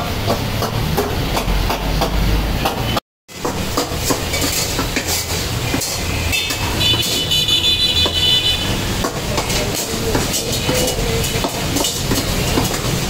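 Busy karahi kitchen: mutton and tomatoes sizzling in steel woks over gas burners, with a metal ladle and skimmer scraping and clattering against the wok. A high whine runs for about two seconds midway.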